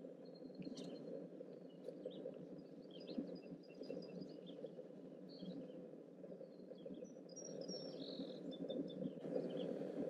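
Faint steady whine of mosquitoes buzzing around the microphone, with scattered short, high-pitched bird chirps.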